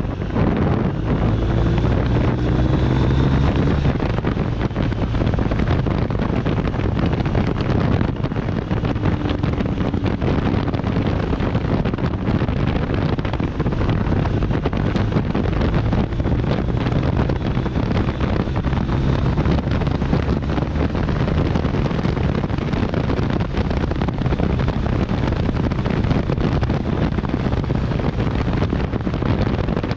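BMW R1250 RT's boxer twin engine running steadily under way at speed, mixed with heavy wind rush over the microphone.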